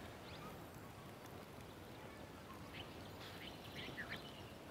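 Quiet outdoor ambience with a few faint, short bird chirps scattered through it.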